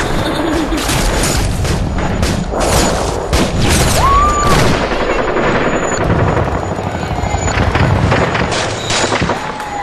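Harsh noise music: a dense, loud barrage of sharp cracks over a constant low rumble, with a short tone that rises and holds about four seconds in.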